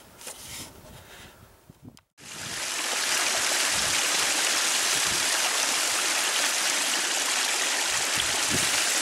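Small mountain spring spilling down over rocks: a steady rushing splash of falling water that starts abruptly about two seconds in, after a quiet opening.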